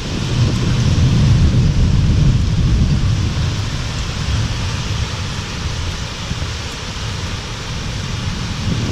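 Thunderstorm: a steady hiss of wind and rain with a low rumble that swells over the first couple of seconds and slowly fades.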